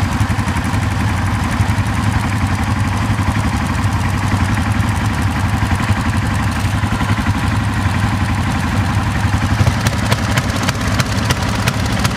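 ATV engine running steadily with a fast, even low pulse as the quad rides along the trail, with a scatter of sharp rattling knocks near the end.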